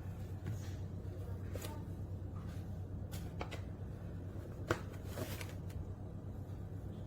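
Scattered light clicks and rustles of something being handled by hand, the sharpest click about two thirds of the way in, over a steady low hum.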